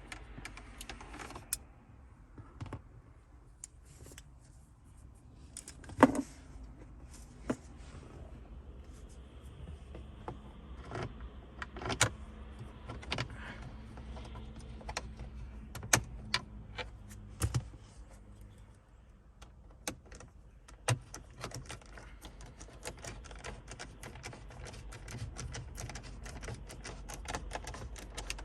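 Scattered small clicks and clinks of a hand screwdriver, screws and plastic trim being handled as the last two screws are fitted.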